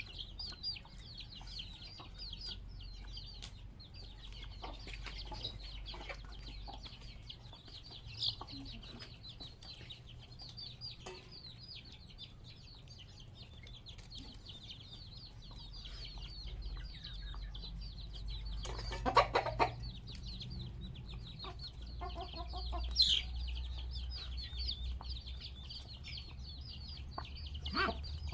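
Chickens clucking, with dense high-pitched chirping throughout and a louder noisy burst lasting about a second two-thirds of the way in.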